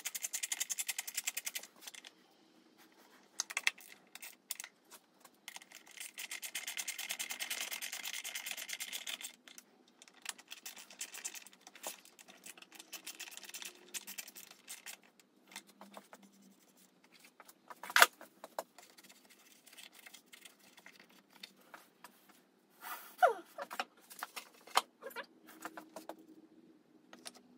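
Socket ratchet clicking fast in two runs, one at the start and one lasting about three seconds near the middle, as bolts are worked around a motorcycle airbox. Scattered tool clicks and knocks follow, the sharpest about 18 seconds in.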